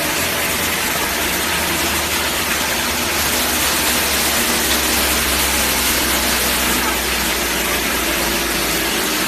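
Sawdust wood mill running: a steady, loud mechanical rush over a low hum.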